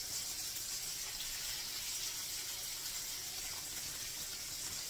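Hamburger patties sizzling in a skillet over a gas burner: a steady high hiss.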